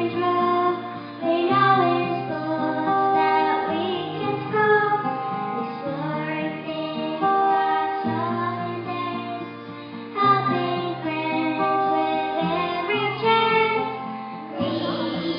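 Children singing a song together with instrumental accompaniment, over a steady bass line.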